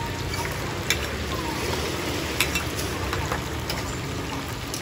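Oyster fritters deep-frying in a large wok of hot oil: a steady sizzle, broken by a few sharp clinks of metal ladles.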